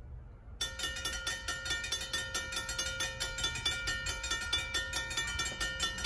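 Railroad grade crossing warning bell starting suddenly about half a second in, then ringing with rapid, evenly spaced strikes, each leaving a ringing tone. The crossing signal has activated for an approaching train.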